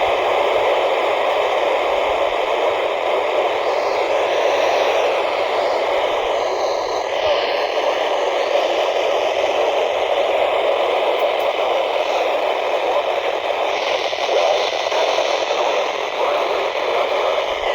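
Steady static hiss from a weather radio receiver.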